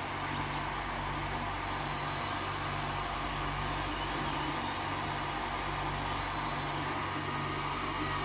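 Creality Ender 3 Pro 3D printer running a print: a steady fan hum, with the stepper motors giving short, high-pitched whining tones that change in pitch as the axes move.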